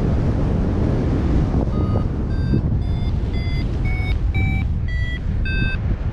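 Wind buffeting the microphone in flight, with a paragliding variometer beeping from about two seconds in: about ten short beeps whose pitch climbs and then drops back near the end, the vario's climb tone signalling rising air.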